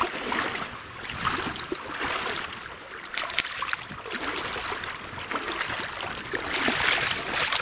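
Irregular splashing and sloshing in shallow river water as a hooked taimen thrashes at the water's edge, over the steady rush of the river.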